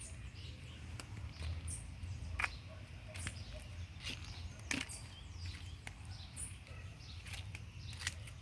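Footsteps crunching on dry fallen leaves, a sharp crackle every second or so, over a steady low rumble of wind on the microphone.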